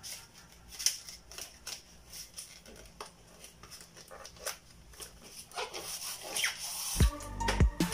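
Handling noise from a water dispenser's foam-insulated evaporator tank being pushed and seated into the cabinet: scattered clicks, knocks and rustling, with a short squeak of foam rubbing about six seconds in and a few heavier thumps near the end.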